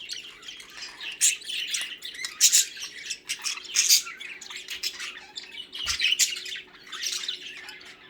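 A flock of pet budgerigars chattering: many overlapping short chirps and squawks, busy and continuous.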